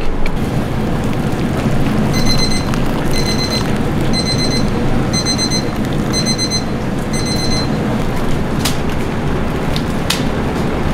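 Electronic timer beeping in quick groups of high beeps about once a second for about five seconds, over steady kitchen noise from a steaming noodle boiler; a couple of sharp clanks near the end.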